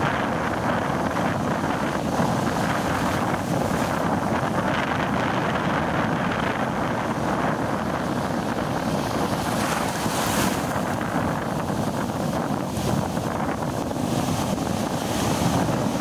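Ocean surf breaking and churning in a steady, continuous rush, with wind buffeting the microphone.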